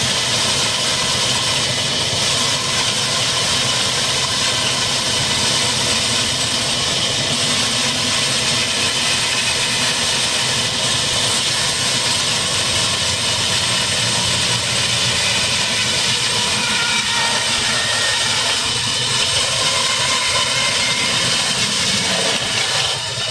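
Large band saw ripping a timber beam: a steady, loud hiss of the blade cutting through wood over the steady running of the Ruston Hornsby diesel engine that drives it.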